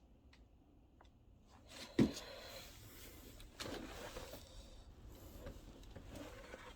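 A sharp knock about two seconds in, followed by uneven scraping and rustling handling noises.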